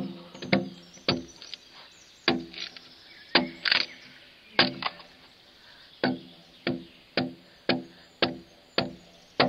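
Broad axe chopping into the side of a pine log while hand hewing it square: a steady run of sharp blows, roughly one every half second to a second, each with a short ringing note from the wood.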